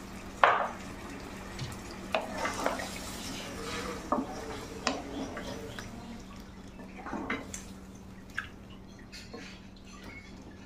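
Wooden spatula stirring freshly added water into a watery curry in a pan. Irregular wet sloshing and scraping, with light knocks of the spatula against the pan.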